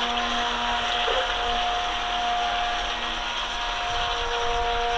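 Small electric water-jet motor of a radio-controlled boat running with a steady whine, over the rush of flowing brook water.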